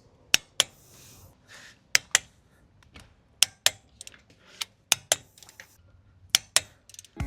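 Torque wrench clicking as lug bolts reach their set torque: five pairs of sharp clicks, about a second and a half apart, with faint handling noise between them.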